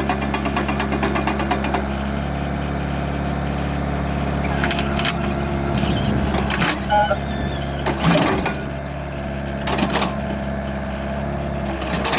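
Hyundai R555-7K excavator's diesel engine running steadily, with fast rattling in the first couple of seconds and a few sharp knocks or clanks around the middle as the machine works.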